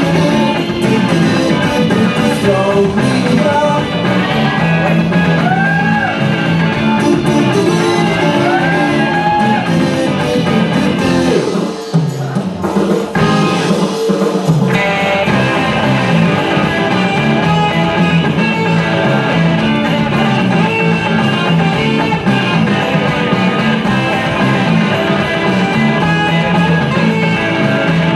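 Rock music with guitar, loud and continuous, briefly thinning out about twelve seconds in before the full band returns.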